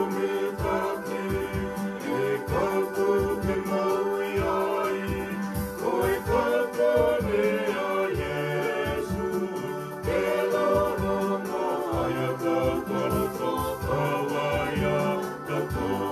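Hymn singing with instrumental accompaniment carrying sustained low notes.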